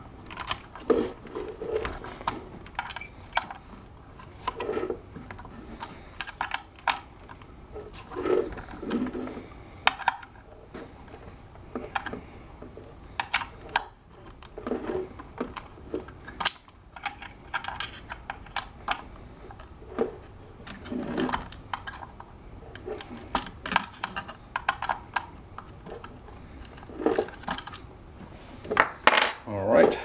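Irregular metallic clinks and taps of a hand screwdriver and screws against the hoverboard's metal frame as the new wheel motor is tightened into place, with duller handling knocks in between.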